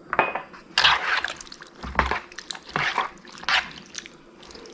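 Ceviche of fish, vegetables and lime juice being mixed in a bowl: about five short, wet, squelching strokes.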